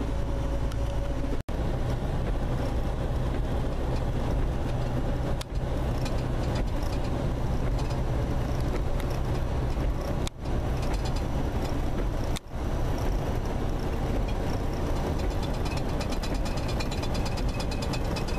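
Steady engine and road rumble heard from inside a vehicle cab moving at highway speed. The sound cuts out briefly a few times.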